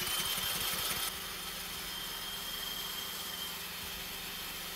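Corded electric drill whining steadily as it spins a small pressure-washer engine over by the flywheel nut, with uneven low pulses from the engine in the first second, then an even drone. The engine turns but does not start, which the owner puts down to a clogged carburetor since fuel, air and spark are all present.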